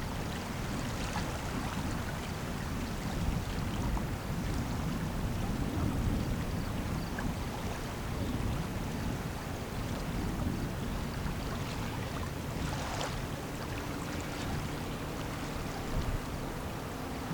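Steady low rumble of a passing self-unloading lake freighter, mixed with wind and water noise and a few faint ticks.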